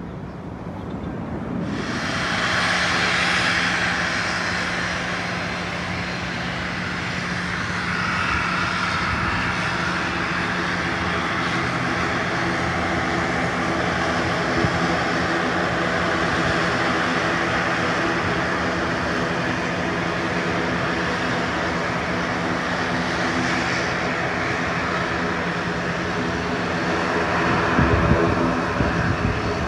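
Airplane engine noise, jumping up sharply about two seconds in and then staying loud and steady, over a steady hum of several tones.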